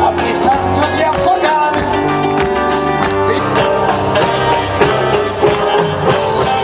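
Live band music with an acoustic guitar playing among other instruments.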